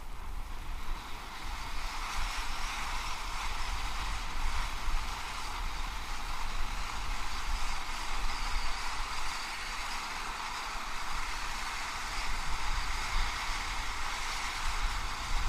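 A consumer ground fountain firework (the 'Eye Poppin' gold and red glitter fountain) burning with a steady, spraying hiss that starts as it catches, over a low rumble underneath.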